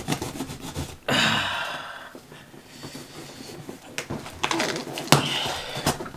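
Cardboard shipping box being worked open by hand: a rasping, tearing stretch about a second in, then a couple of sharp knocks and more scraping near the end.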